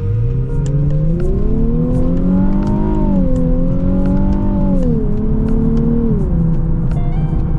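Nissan 370Z Nismo's 3.7-litre V6 accelerating under moderate throttle: the engine note climbs for about three seconds, dips briefly as the automatic shifts up, holds, then falls in steps near the end as the revs come down, over steady road noise.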